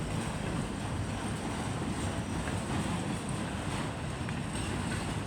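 CN train rolling past at trackside, a steady low rumble with no horn sounding.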